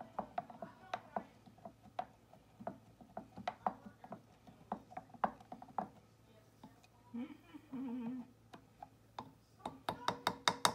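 Wooden spoon knocking and clinking against the inside of a glass pitcher as hot herbal tea is stirred: irregular sharp clicks, two or three a second, with a quick run of knocks near the end.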